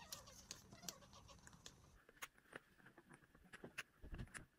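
Faint, irregular clicks and ticks of pliers working against the metal frame of a leather bag, with a duller knock near the end.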